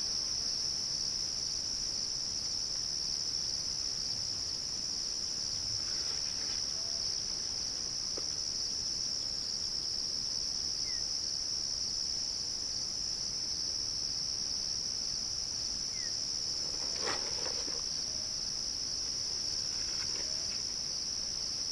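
A chorus of insects making a steady high-pitched drone in the evening grassland, with one soft knock toward the end.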